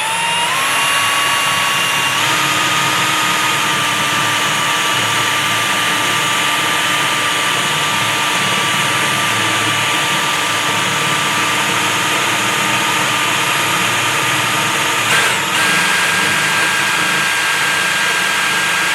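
Power drill running steadily with a dull twist drill bit pressed against a shelf bracket, the bit too dull to cut through. A steady whine that steps up in pitch after a brief jolt about fifteen seconds in.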